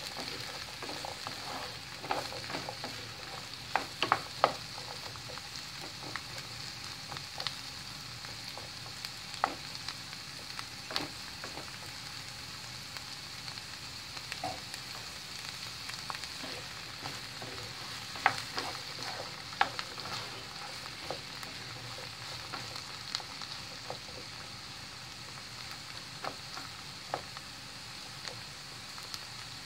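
Chopped asparagus and onion sizzling steadily in butter in a frying pan, with irregular clicks and scrapes now and then as a wooden spoon stirs them against the pan.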